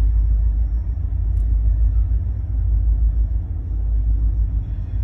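A steady low rumble with no clear pitch.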